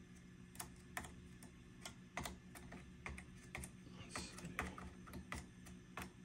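Light, irregular clicks of a probe stick tapping on the solder joints and components inside a powered Fender 5G9 Tremolux clone's chassis, over a faint steady hum. It is a tap test for bad solder joints, and the joints hold up without crackling.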